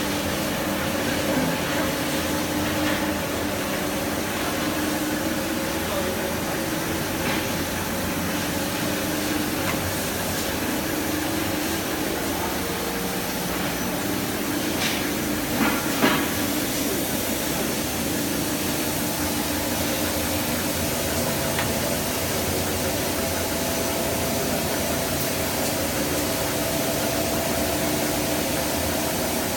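Copper rod breakdown wire drawing machine running steadily: a constant mechanical hum with a few steady tones over a hiss, and a couple of sharp clicks about halfway through.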